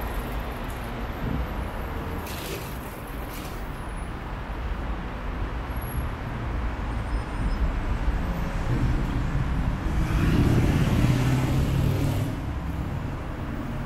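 Steady road traffic noise. A louder vehicle rumbles past, building from about nine seconds in, peaking around eleven seconds and fading by twelve.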